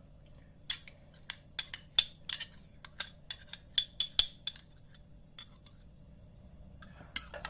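Quick series of light clinks against a drinking glass, about four a second, each with a short ringing note; they stop about two-thirds of the way through.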